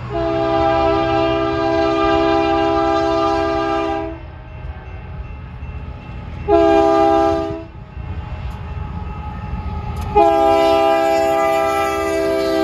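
BNSF diesel locomotive's multi-chime air horn sounding three blasts, long, short, then long, each a steady chord. A low rumble from the rolling train runs underneath.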